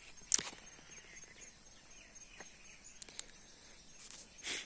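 Quiet garden ambience with a faint, steady high insect trill. A sharp click comes about a third of a second in, and two short hisses near the end.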